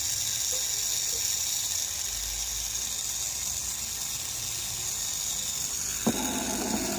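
Battery sprayer pump's small electric motor running with a steady high-pitched whine, the excessive noise of a worn small bearing inside on its shaft. A sharp click about six seconds in.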